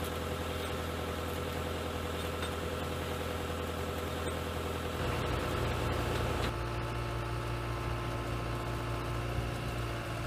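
Diesel engine of a CAT compact track loader running steadily, driving a Digga cement mixer attachment through its hydraulic auger drive. The engine note shifts about five seconds in and again a second and a half later.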